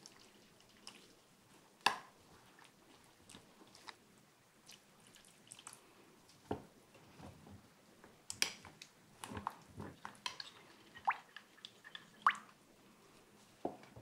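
Metal spoon stirring a thick starch-and-water batter in a glass bowl: soft wet squishing and scattered clinks of the spoon against the glass, a couple of them ringing briefly. The clinks come thickest in the second half.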